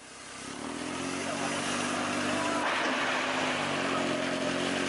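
A steady engine hum with an even hiss over it at a steam locomotive depot, fading in at the start.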